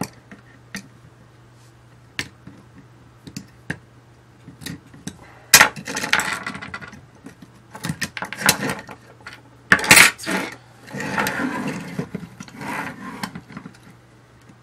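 Side cutters snipping through wires in a wiring loom: scattered sharp clicks among rustling and clatter of wire bundles and metal panels being handled, with the loudest snaps about five and a half and ten seconds in.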